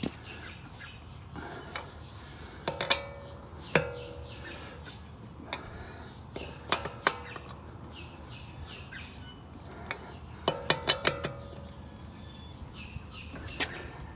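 Steel lug wrench clinking on the lug nuts as they are tightened on a pickup's spare wheel, in scattered sharp metallic clinks that come in quick clusters about three seconds in and again near eleven seconds. Birds chirp faintly in the background.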